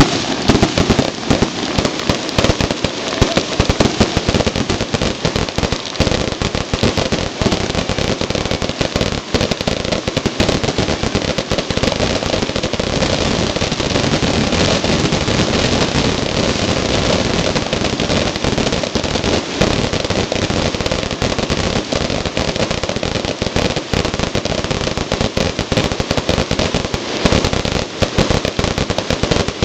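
Ground-launched consumer fireworks, cakes and fountains, going off close by. It is a dense, unbroken barrage of rapid pops and crackles that never lets up.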